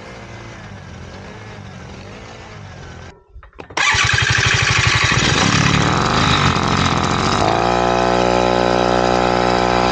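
A 49cc four-stroke bicycle engine runs fairly quietly with a wavering pitch. After a brief cut, a BT80 two-stroke bicycle engine comes in loud, with separate firing pulses at first. About two thirds of the way through its pitch rises and then holds at a steady high rev.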